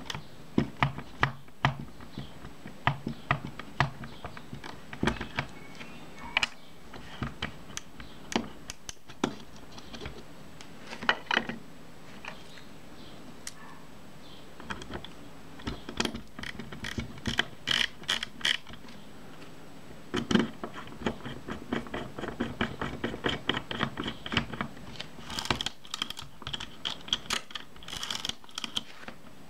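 Irregular small metallic clicks and taps from the parts of a Kodak Retina Ia camera's top-plate mechanism as they are handled and fitted, with denser runs of quick clicks about halfway through and again near the end.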